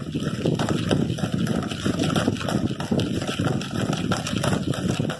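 A spoon beating and scraping desi ghee and powdered sugar in a plastic bowl in rapid, continuous strokes, creaming the mixture until it turns pale and fluffy.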